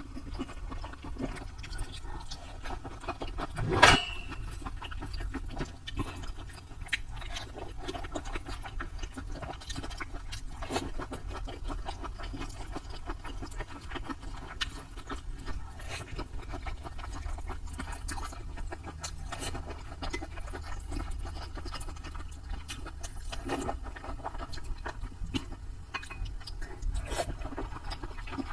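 Close-miked eating sounds: chewing with many small wet clicks and smacks, and one sharp knock about four seconds in.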